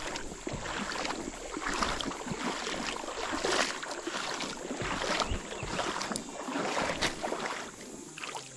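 Irregular splashing and sloshing of creek water, with a steady hiss beneath.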